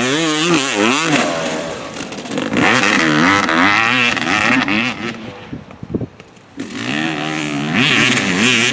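Yamaha WR 250 single-cylinder two-stroke enduro engine revving hard as the bike is ridden, its pitch swinging up and down with the throttle. About five seconds in the revs fall away and it goes quieter for a second or so, with a couple of knocks, then it revs up high again.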